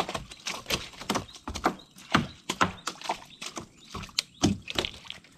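A freshly landed adungan (hampala barb) flopping in the bottom of a wooden canoe, its body slapping against the hull in a string of irregular knocks, about two a second.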